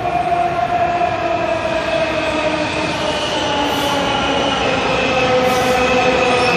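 A Washington Metro (WMATA) train pulling into an underground station, its propulsion whine sliding down in pitch as it brakes, over wheel and rail noise that grows a little louder as it comes alongside.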